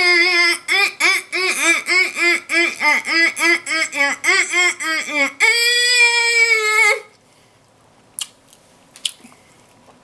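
A woman's voice in a quick run of short pitched sounds, about three a second, like laughing or a delighted 'mm-mm-mm', ending in one long held note about five and a half seconds in. A few faint mouth clicks follow near the end.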